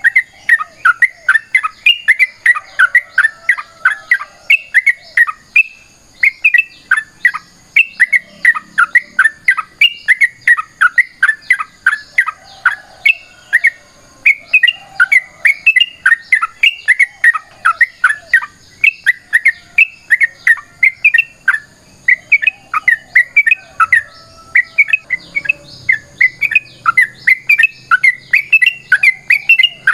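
Yellow-vented bulbul (trucukan) singing a long, unbroken run of quick, bubbly chattering phrases, several notes a second without pause.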